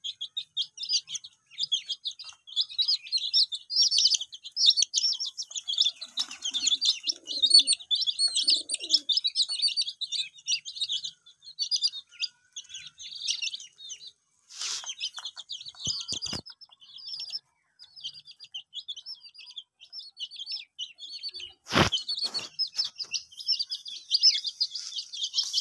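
Many baby chicks and ducklings peeping, a busy stream of high-pitched cheeps that thins out briefly around the middle. A single sharp click near the end.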